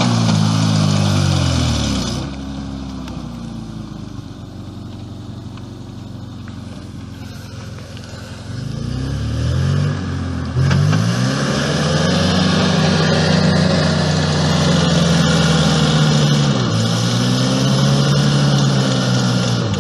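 Off-road SUV's engine revving up and falling back again and again under changing load. After about two seconds it drops to a quieter, lower-revving stretch, then climbs back to high revs with a couple more dips and rises.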